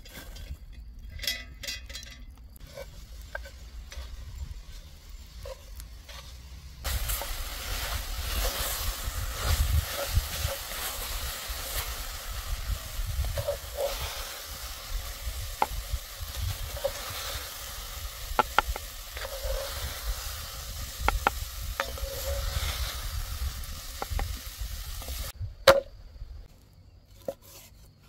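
Chicken skewers sizzling over hot embers, an even hiss with scattered sharp pops and crackles. The sizzle starts suddenly about seven seconds in and stops just as suddenly a few seconds before the end; before it there are only sparse clicks and light knocks.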